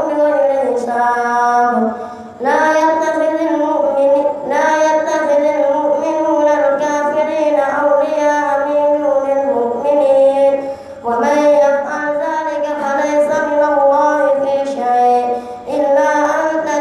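A boy's voice reciting the Quran aloud in a melodic, chanted Arabic style, drawing out long ornamented notes, with a few short breaks for breath.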